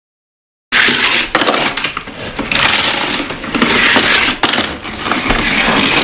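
Plastic toy clatter from a Hot Wheels garage playset: toy cars and hard plastic track pieces rattling and clicking as they are handled, starting abruptly under a second in and going on as a dense run of clicks.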